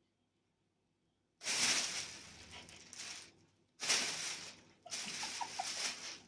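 Plastic bag crinkling and rustling as a cat moves about in it, in three bursts: the first and longest starts about a second and a half in, followed by two shorter ones.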